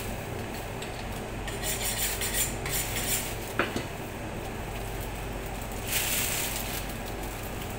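Butcher's knife scraping and cutting through raw pork while taking out the bones, in a few scraping strokes, with one sharp knock of the knife about three and a half seconds in. A steady low hum runs underneath.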